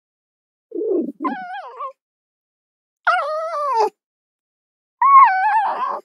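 Fox calls: a brief low, rough sound about a second in, then three high, wavering whining cries, each under a second long, with silent gaps between them. The last cry falls in pitch at its end.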